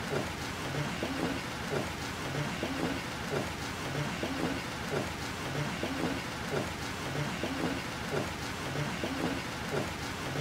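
Heavy rain falling steadily, with a low regular pulse about twice a second underneath.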